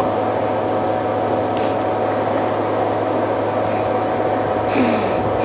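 Steady hiss with a constant low hum, and faint splashing of elephants wallowing in the water about a second and a half in and again near the end.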